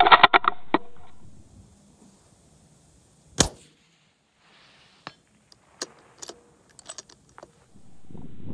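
A single .223 Remington rifle shot about three and a half seconds in, a sharp crack with a short tail. Over the next few seconds a string of lighter metallic clicks follows as the bolt is worked.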